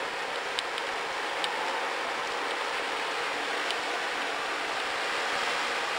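Rain starting to fall at the onset of a thunderstorm: a steady, even hiss with a few faint ticks.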